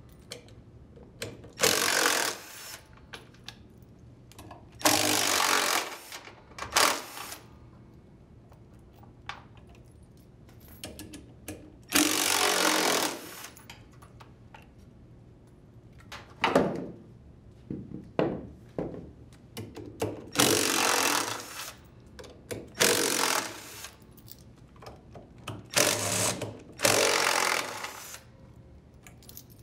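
Cordless impact driver with a 10 mm socket on an extension backing out the bolts on a washer's tub, in a series of short rattling runs of about a second each with pauses between.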